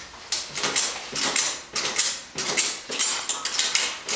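Mini trampoline with tapered steel springs creaking and jangling with each bounce as a person rebounds on it, a steady rhythm of about two bounces a second.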